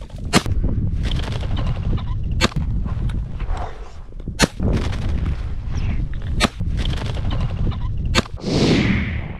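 Shotgun shots at flushing pheasants: five sharp blasts about two seconds apart, over a steady low rumble of wind on the microphone. A short rushing sound follows the last shot.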